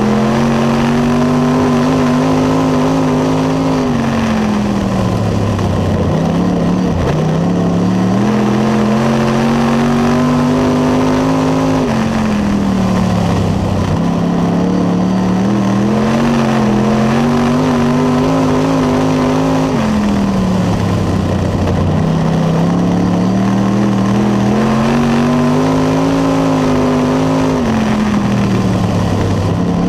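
Late Model race car's V8 engine heard from inside the cockpit at racing speed, climbing in pitch down each straight and dropping off sharply as the driver lifts for each turn, about every eight seconds.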